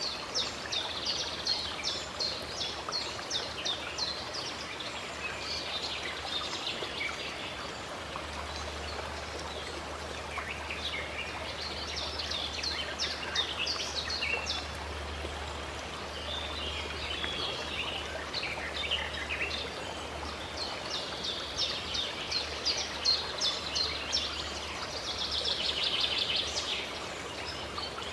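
Water flowing steadily from a fountain, with birds singing over it in repeated bursts of quick chirps, the busiest and loudest burst near the end.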